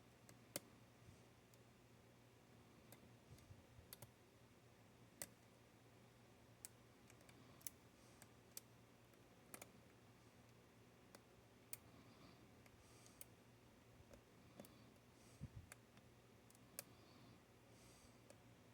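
Faint, irregular clicks of a hook pick working the pin stack of a Paclock 90A-Pro padlock under tension, over a faint low hum.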